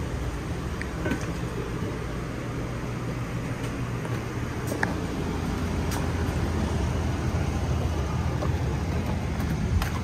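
Steady low hum of the camper's two rooftop air conditioners running, with a few light clicks and knocks scattered through it.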